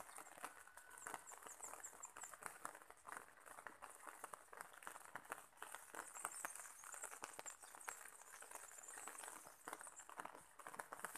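Faint outdoor ambience: a dense, irregular soft tapping and crackling, with short runs of high, thin chirps about a second in and again around six seconds in.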